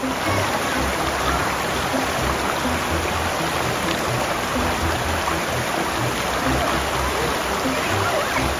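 Shallow river rapids rushing steadily over rocks, with background music and its bass line underneath.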